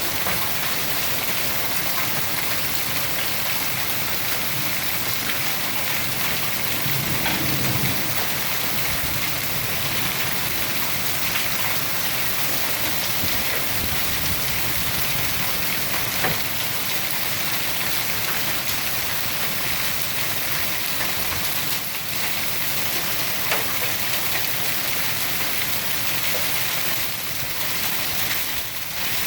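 Hailstorm: heavy rain and large hailstones, about 2.25 inches across, pelting surfaces in a dense, steady downpour, with a few sharp louder hits scattered through it. A brief low rumble sounds about seven seconds in.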